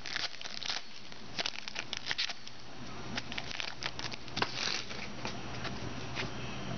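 2009 Score Inscriptions football trading cards being flipped and slid through by hand: irregular light clicks and rustles in clusters as the card stock snaps and slides over itself.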